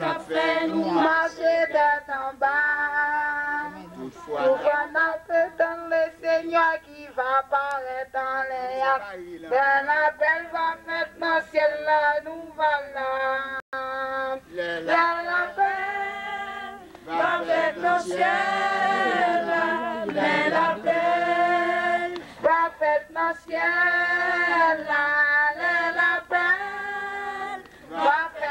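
A group of women singing a hymn together, unaccompanied, in long held notes.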